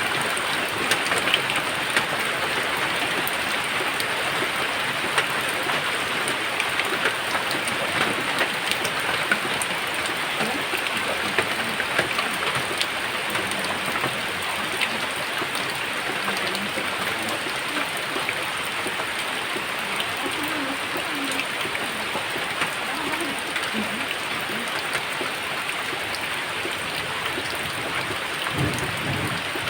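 Steady rain falling, with individual drops ticking sharply on a surface throughout.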